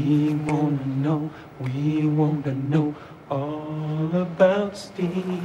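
Men's voices singing a slow, chant-like tune without accompaniment, in about four long held phrases.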